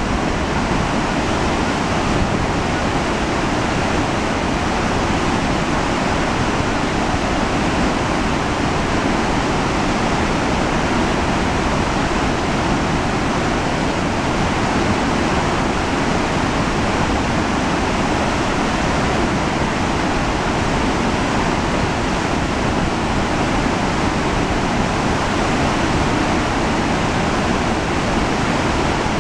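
Spokane River in spring runoff pouring through the open gates of the Post Falls Dam and down a rocky gorge: a loud, steady rush of white water.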